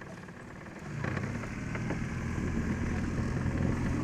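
An engine starts running about a second in, a steady low hum that grows louder.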